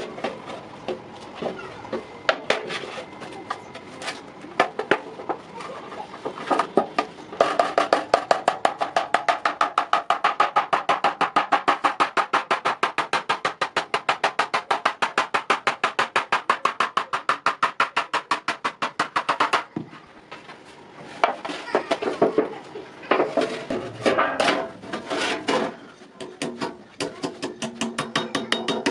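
Hammer blows ringing on iron: scattered strikes at first, then a fast, even run of about five blows a second for some twelve seconds, then irregular blows again near the end.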